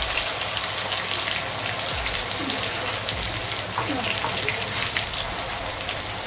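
Freshly ground masala paste sizzling in hot oil, a steady crackle of fine spatters.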